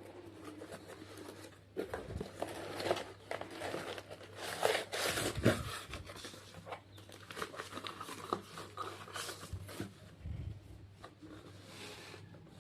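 Packaging being handled and torn open: irregular crinkling and tearing, busiest a little before the middle.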